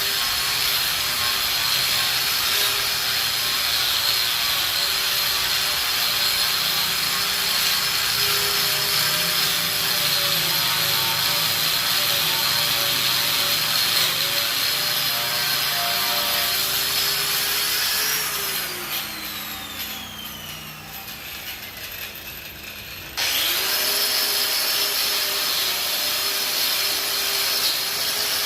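Electric angle grinder running steadily against the steel top of a welding table, cleaning off rust. It is switched off about two-thirds of the way through and whines down in pitch as the disc coasts, then is switched back on about five seconds later and comes straight back up to speed.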